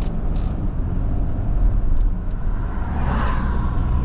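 Motor vehicle running with a steady low rumble; a brief rushing noise swells about three seconds in.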